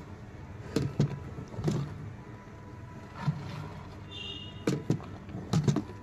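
Steel measuring cup clinking against the rim of a steel milk bucket as milk is scooped out and poured into a plastic drum, making a string of irregular sharp knocks.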